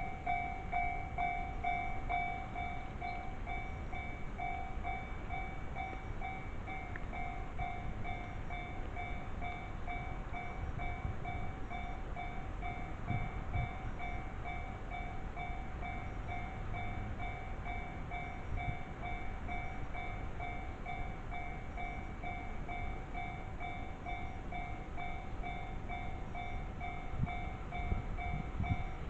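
Japanese railway level-crossing warning alarm ringing: an electronic bell repeating its ding at an even, fairly quick pace.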